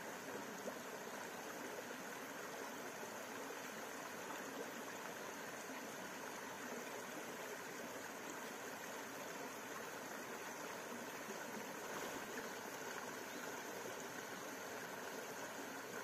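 A stream flowing over rocks: a steady rushing of water.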